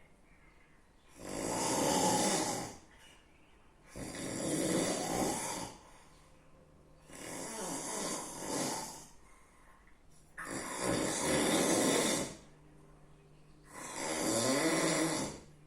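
A sleeping person snoring loudly: five long snores of about two seconds each, coming about every three seconds in a steady breathing rhythm.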